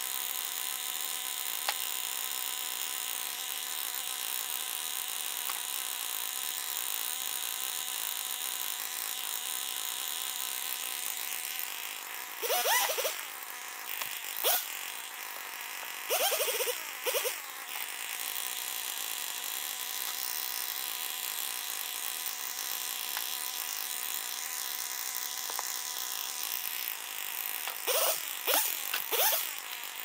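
Two-stroke Husqvarna T540 XP Mark III top-handle chainsaw idling with a steady buzz, with a few brief throttle revs partway through and a cluster of revs near the end.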